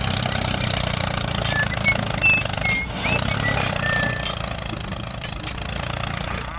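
Tractor engine running steadily, a low even hum, with a few short high chirps over it.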